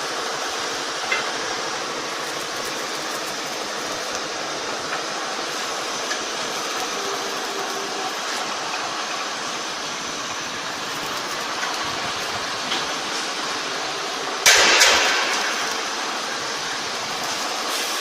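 CNC rebar bending center running: a steady machine noise with a few light clicks. About two-thirds of the way in, a sudden loud hiss fades away over a second or so.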